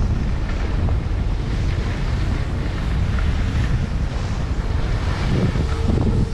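Wind buffeting a GoPro Hero 8 Black's microphone, with the rush of skis sliding over snow, as the skier glides downhill. A faint steady hum comes in near the end.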